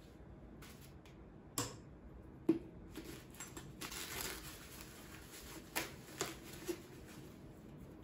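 Rustling and crinkling of white packing paper as a small ceramic vase is unwrapped by hand, with a few sharp clicks and taps from the handling.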